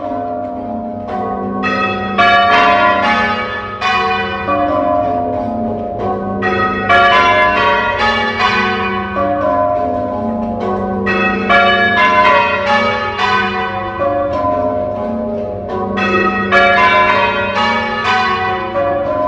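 Church tower bells being rung in change ringing: a continuous run of overlapping bell strokes, each bell ringing on into the next.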